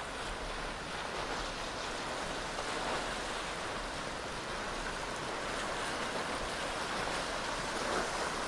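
Surf washing steadily on a beach, a continuous rushing hiss that swells a little toward the end.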